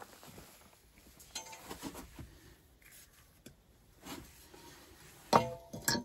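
A hacksaw hanging on a log wall handled by a gloved hand, its metal frame knocking against its nail or the tools beside it: a small metallic clink about a second and a half in, then a sharp clank with brief metallic ringing near the end, among faint knocks and rustles.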